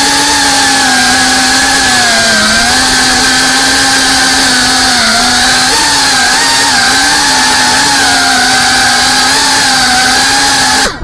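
FPV racing quadcopter's brushless motors and propellers whining in flight, heard through the onboard camera's microphone. A steady high buzz wavers and dips briefly with throttle changes over a constant rushing hiss, then cuts off abruptly at the very end.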